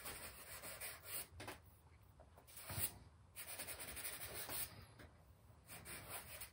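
Compressed charcoal stick scraping across newsprint in short, faint shading strokes, broken by brief pauses. A soft knock a little under three seconds in.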